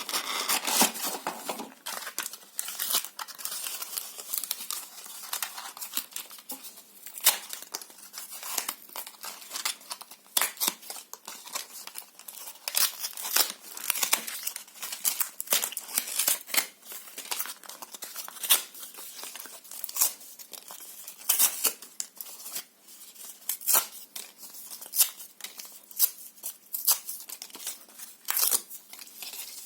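Paper and cardboard being torn and crumpled close up: an irregular run of sharp rips and crackles, some louder than others.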